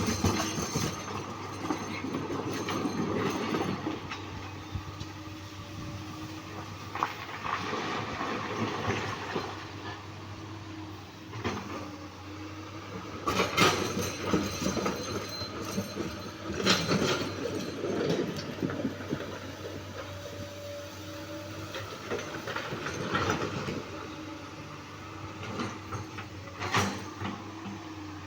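Komatsu PC200-8 excavator's six-cylinder diesel engine running steadily with its hydraulics working, broken several times by sharp knocks and scrapes of boulders.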